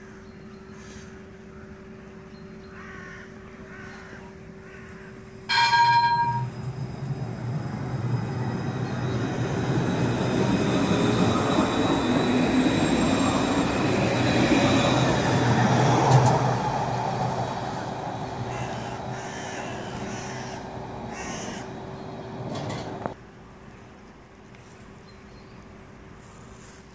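An Alstom Citadis low-floor electric tram gives one short ringing chime, then pulls away from the stop and passes close by. Its running rumble and motor whine build up, peak, and fade, then cut off abruptly.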